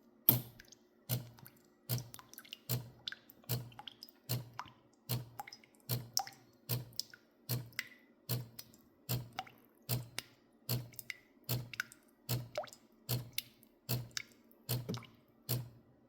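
DēLonghi Magnifica Evo espresso machine pulsing water through during its cleaning cycle: a steady rhythm of short thumps with a click, about one every 0.8 seconds, over a faint hum.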